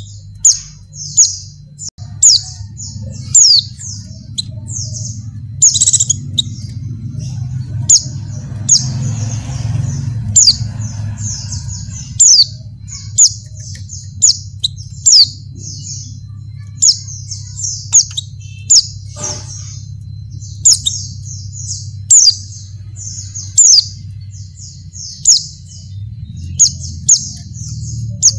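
Female white-eye (pleci) calling in a rapid, unbroken run of high chirps, with louder sharp notes about once a second: a female in breeding condition calling to a male. A steady low hum runs underneath.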